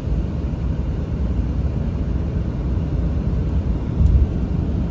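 Steady low rumble of a vehicle in motion, swelling briefly about four seconds in.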